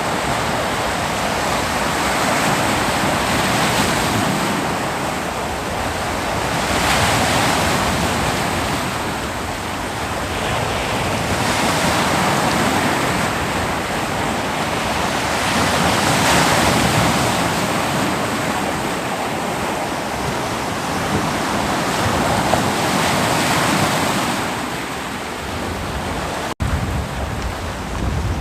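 Ocean surf breaking on a beach: a continuous rushing wash that swells and eases every few seconds as waves come in. Near the end there is a momentary break in the sound.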